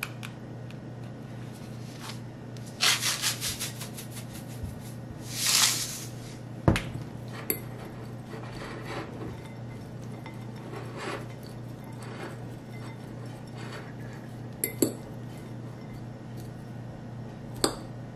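Salt shaken from a plastic sea-salt container over a bowl: a quick run of rattling shakes, a short hiss, then a sharp knock. After that a fork tosses bean sprouts in a ceramic bowl, with a few sharp clinks of the fork against the bowl, over a steady low hum.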